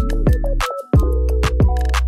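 Background electronic music with a steady beat of deep bass hits that drop in pitch and quick high ticks.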